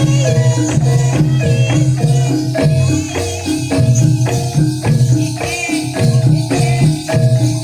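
Javanese gamelan music for a jaranan dance: struck metallophones playing a repeating melody over drums and other percussion at a steady beat.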